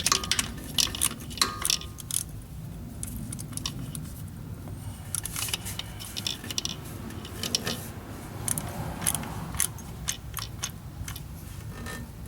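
Ratchet wrench clicking in short, irregular runs as it tightens the bolt that holds a crankshaft position sensor, with light metallic clinks between runs.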